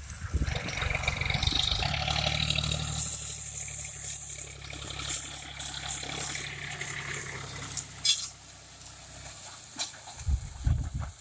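John Deere tractor's diesel engine running steadily under load as it drags a stalk-removal tool through dry cotton stalks, with sharp crackling and snapping from the stalks being torn out.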